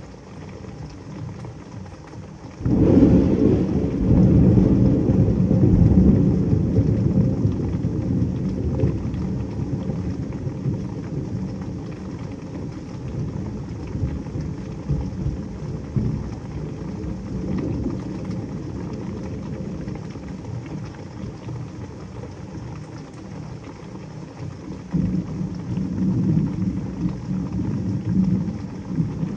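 Steady heavy rain with a thunderclap breaking about three seconds in, a loud low rumble that slowly fades. Near the end the low rumble swells again.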